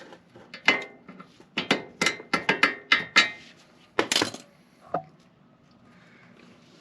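Hand tools working a steel cotter pin: a quick series of sharp metallic clicks and clinks with a slight ring, as the pin's excess is cut and its legs bent over, followed by one last click about five seconds in.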